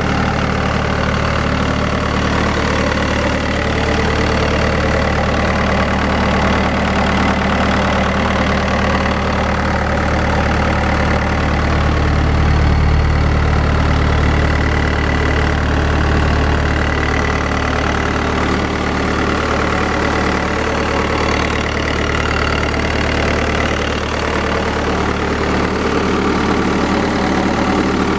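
Turbocharged diesel engine of a Bobcat S160 skid-steer loader idling steadily, heard up close in the open engine bay.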